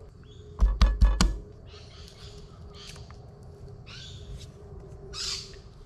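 A few sharp knocks of a chef's knife and hands on a wooden chopping board as a garlic clove is cut, about a second in. Then several short, harsh bird calls from the surrounding bush.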